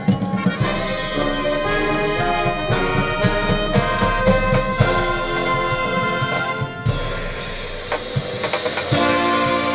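Marching band playing, with brass and woodwinds over regular drum beats. About seven seconds in it eases to a softer passage, and the full band comes back in near the end.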